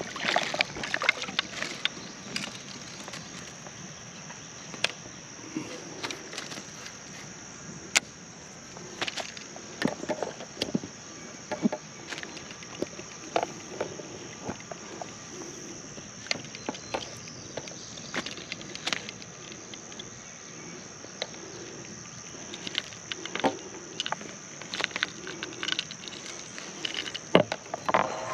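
A steady high-pitched insect drone runs under scattered sharp clicks and knocks, with water splashing at the start as a hooked smallmouth bass thrashes at the surface.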